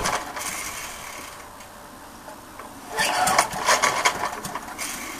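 1972 Briggs & Stratton 3.5 hp lawnmower engine with no exhaust fitted, being pull-started: a sputter dies away just after the start, then about three seconds in it fires in a rapid string of sharp pops for a second and a half or so and dies again. It is a hard-starting old engine that catches but won't keep running.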